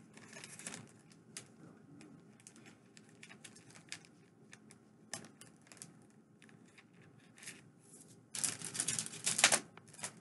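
Packaging being handled and unwrapped: scattered light clicks and rustles, then a louder stretch of crinkling that starts about eight seconds in and lasts over a second.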